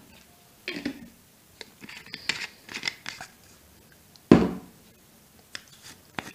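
Kitchen handling sounds: scattered rustles and light clicks of utensils and containers, with one sharp knock about four seconds in, as of something set down hard on the counter.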